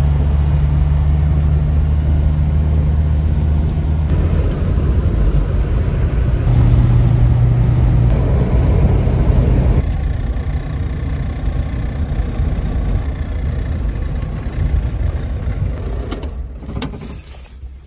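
1997 Land Rover Defender's engine and road noise while driving, a steady low drone that changes pitch a few times. Near the end keys jingle and the engine noise drops away.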